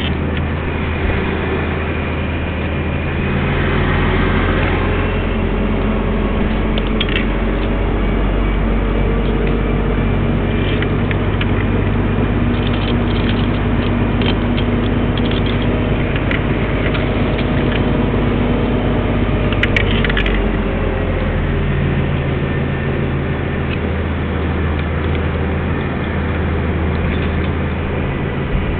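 Crane truck's diesel engine running steadily. It revs up about three seconds in and settles back down around twenty seconds, with scattered mechanical clicks and clanks in the middle.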